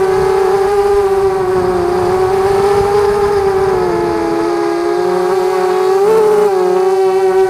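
Mini quadcopter's brushless motors and propellers whining steadily in flight, the pitch sagging a little about four seconds in and jumping up briefly near six seconds as the throttle changes.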